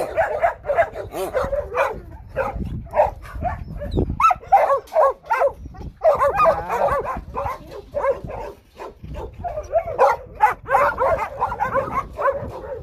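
Several kennelled dogs barking over and over in short, overlapping barks, with a brief lull about two-thirds of the way through.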